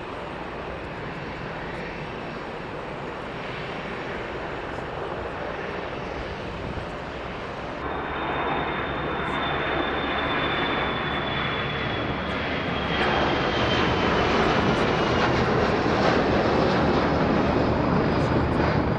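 Passenger airliner's engines running, growing steadily louder. After a cut about eight seconds in, a high engine whine slides slowly down in pitch.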